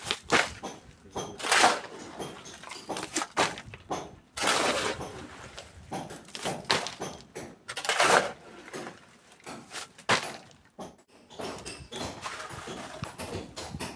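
A series of irregular knocks and thuds with scraping between them, a few of them louder bangs.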